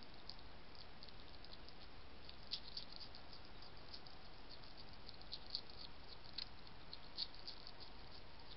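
European hedgehog chewing and crunching food: a fast, irregular run of faint small clicks, with a few louder crunches.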